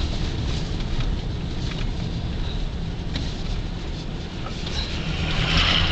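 A car driving slowly, heard from inside the cabin: a steady low rumble of engine and tyres, with a brief louder hiss near the end.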